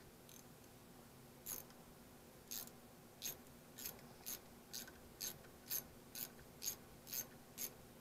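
Ratcheting bit screwdriver clicking as it backs a screw out of a sump pump's housing. The clicks start about a second and a half in and then come about twice a second, a little faster near the end.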